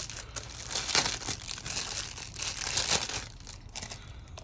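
Clear plastic wrapping crinkling and rustling as it is handled around bottles of shampoo and conditioner, dense for about three seconds and then dying down near the end.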